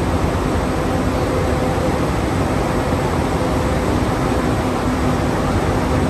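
Hose braiding machines running together on a production line: a loud, steady machine noise with a faint low hum underneath.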